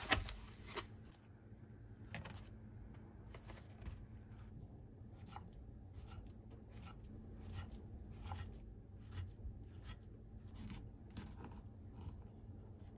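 Quiet food prep: a plastic strawberry container rustling near the start, then a kitchen knife slicing a banana and cutting into an avocado, with light taps of the blade on a wooden cutting board.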